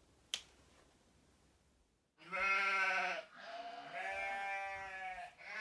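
A sharp click just after the start, then, from about two seconds in, a farm animal bleating in two long drawn-out bleats.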